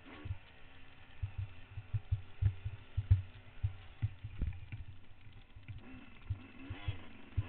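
Trail motorbike's engine running at low revs under many irregular low thumps and knocks, the loudest around three to four seconds in; the engine note rises and falls near the end.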